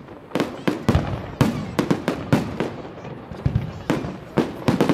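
Fireworks going off: a rapid, irregular string of sharp bangs and crackles, several loud reports a second.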